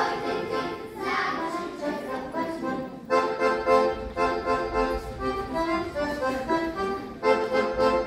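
Accordion playing a traditional folk dance tune in short phrases over chords, with brief breaks between phrases.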